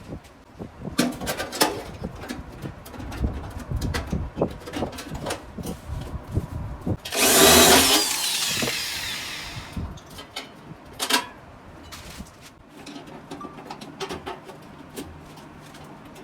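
Workshop clatter of metal parts knocking and clicking. About seven seconds in, a power tool runs in one short loud burst and then winds down over a couple of seconds.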